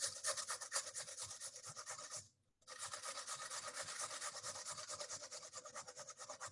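Carrot being grated on a metal box grater: a fast, even run of rasping strokes, with a short pause a little over two seconds in before the strokes resume.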